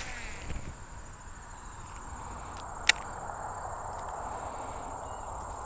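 13 Fishing Inception baitcasting reel winding in line as a topwater frog lure is worked back across the lily pads: a steady whirring hiss, with one sharp click about three seconds in. A thin, steady high whine runs over it.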